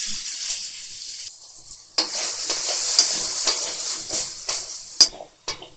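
Cubes of paneer frying in hot ghee in a kadai: a loud sizzle that fades over the first second or so. About two seconds in, a spatula starts stirring the cubes, with a renewed frying hiss and sharp clicks of the spatula against the pan about every half second.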